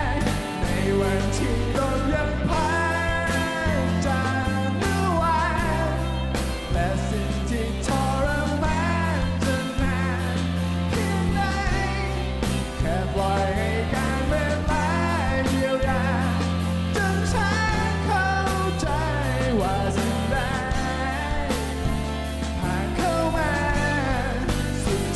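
Live rock band playing: a male lead singer over strummed acoustic guitar, electric guitar, bass guitar and drums, with a steady beat.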